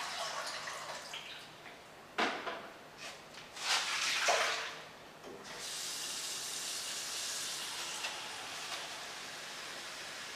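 Kitchen sink tap running with water splashing as things are washed under it, with a few louder splashes about two and four seconds in, then a steady stream for the rest.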